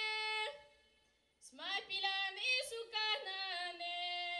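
A girl singing solo and unaccompanied, sliding into long held notes. One phrase ends about half a second in; after about a second of quiet a new phrase starts and closes on a long held note.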